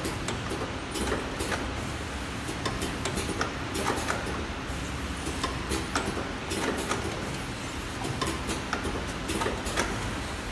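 Automatic round-bottle labelling machine running: a steady hum from its conveyor and drive, with frequent irregular clicks and ticks several times a second.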